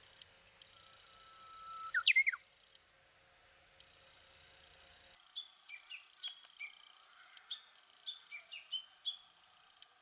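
Japanese bush warbler singing its song: a long, level whistle followed by a quick up-and-down flourish, the "hoo-hokekyo". About five seconds in, a run of a dozen or so short, high chirps follows.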